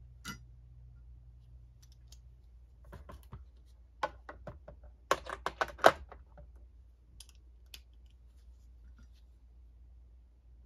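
Scattered light clicks and taps of a screwdriver and small screws being handled on an alternator's housing during reassembly, with a quick run of sharper clicks a little past midway.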